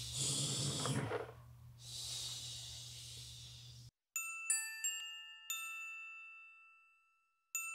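About four seconds of room noise with a low hum, loudest in the first second, then an abrupt cut to an intro jingle of glockenspiel-like struck notes. Several notes chime in quick succession and ring out to fade, and more notes start near the end.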